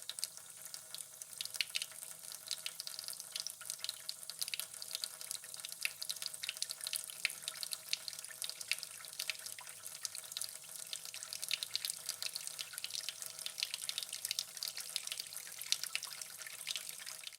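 Water dripping fast and irregularly, many small drops a second.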